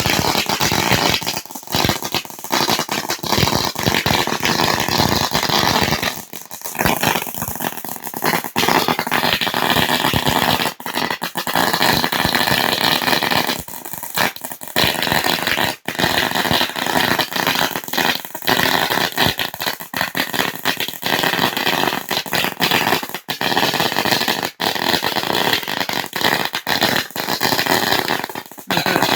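A long string of about 8,000 firecrackers going off in a rapid, unbroken stream of loud cracks, too fast to count and dense enough to merge into a crackling roar.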